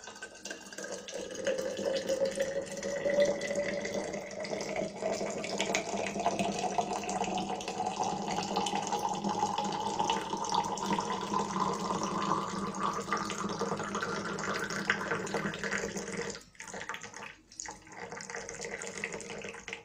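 Hot water poured in a steady stream from a stainless steel kettle, the pitch of the pour rising slowly as the vessel fills. The pour breaks off about sixteen seconds in, with a few short trickles after.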